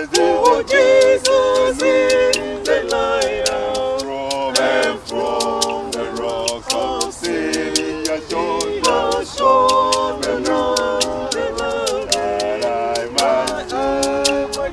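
A group of voices singing a gospel song in harmony without instruments, over a steady beat of sharp claps, about three or four a second.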